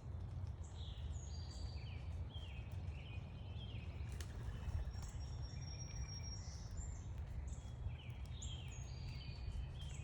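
Several small songbirds chirping and calling, with runs of short, quick notes at a couple of pitches, over a steady low rumble of background noise.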